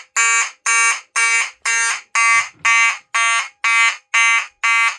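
Fire alarm horn sounding in even pulses, about two blasts a second.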